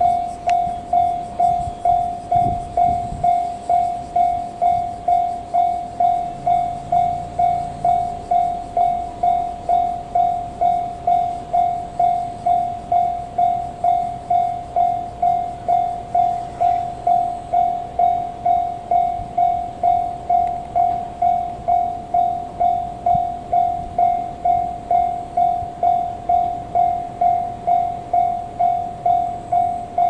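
Japanese railway level-crossing warning bell ringing steadily, an electronic ding repeated about one and a half times a second, signalling that a train is approaching.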